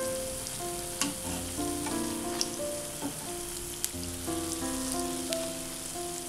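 Onion fritters (ulli vada) deep-frying in sunflower oil, a steady sizzle, with a couple of sharp clicks as the spatula and wire skimmer touch the pan. Background music of held notes plays over it.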